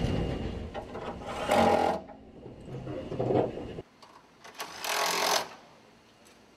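Car assembly-line machinery running with a low rumble, with three short bursts from a handheld cordless power tool, at about one and a half, three and five seconds in.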